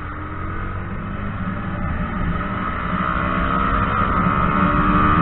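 Motorcycle engine accelerating hard, its note climbing steadily in pitch and growing louder as the bike gathers speed, heard through a helmet-mounted action camera's microphone.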